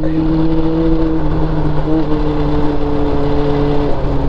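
Motorcycle engine, a Honda CB400, running at a steady cruising pace on the move, over a constant rush of wind and road noise. Its note shifts slightly about two seconds in and again near the end.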